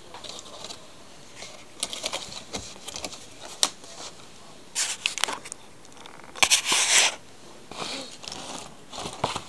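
Clear plastic blister packaging crinkling and crackling as it is handled, in irregular bursts, the loudest about two-thirds of the way through.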